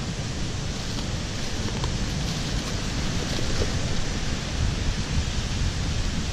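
Steady rushing outdoor noise of wind buffeting the microphone, with surf behind it.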